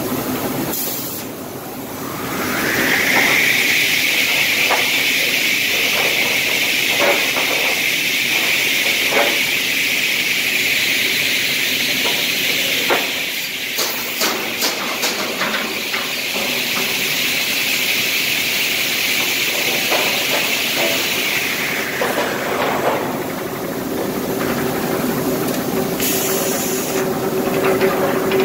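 Component saw's circular blades spinning up with a rising whine about two seconds in, running steadily with a high hiss, then winding down about twenty seconds later. Scattered clacks of lumber and chain come partway through.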